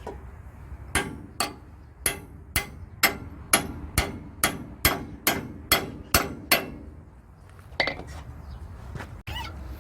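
A hammer striking metal: about a dozen steady blows, roughly two a second, each ringing briefly, then stopping; a few fainter knocks follow near the end.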